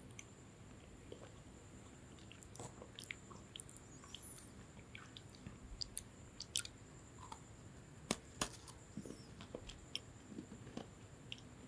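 Lemon sandwich biscuit being chewed close to the microphone: faint, irregular crisp crunches, with the two sharpest a little past eight seconds in.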